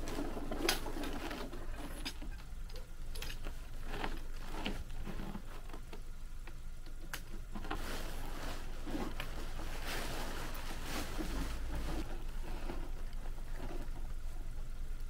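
Rustling and scraping of a large Kazmi X9 tent's fabric as it is spread out and shifted on a wooden deck, with scattered small knocks and clicks.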